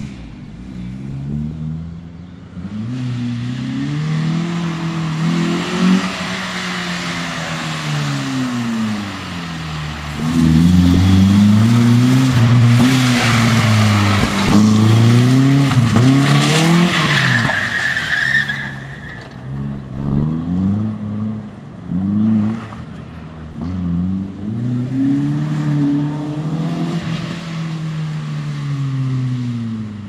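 FSO Polonez with a swapped-in BMW 2.0 engine drifting: the engine revs up and down over and over on and off the throttle, while the tyres squeal and skid. The tyre noise is loudest in the middle stretch and stops suddenly a little past halfway, after which the revving carries on.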